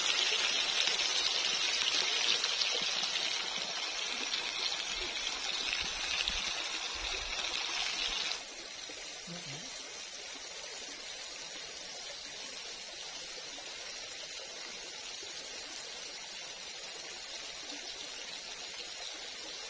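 Hot oil sizzling steadily around squirrel meat frying in a wok. About eight seconds in it cuts off abruptly to a fainter, steady hiss.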